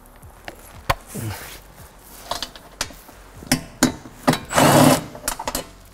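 Compact Milwaukee cordless impact wrench loosening a nut: clicks and knocks of the tool and socket on the bolt, then one short burst of hammering about three-quarters of the way through, the loudest sound.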